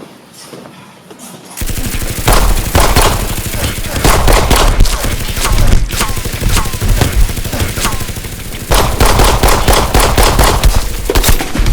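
Rapid gunfire, shot after shot in quick succession. It starts about a second and a half in and keeps going almost without a break.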